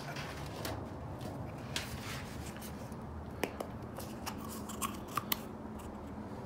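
Handling noise from a small plastic container being turned over and opened by hand: rustling with several sharp plastic clicks and snaps. It turns out to be empty.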